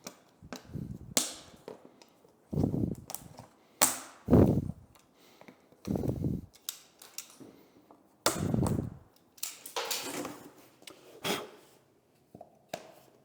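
A series of irregular sharp clacks and knocks, some with a heavier thud, from vinyl click-flooring planks being handled, cut and test-fitted.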